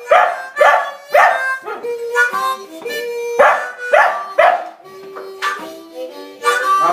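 A dog howling along to blues played on a harmonica, over a rhythmic accompaniment of sharp, regular beats.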